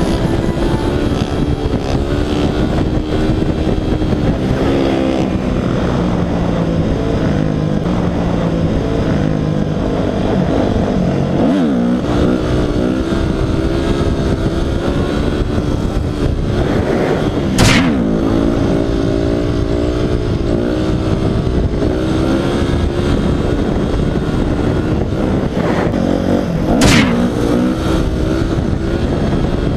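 Yamaha enduro dirt bike's engine running under way, rising and falling in pitch as it is ridden through the gears. Twice, about two-thirds of the way through and again near the end, it gives a short, sharp rev.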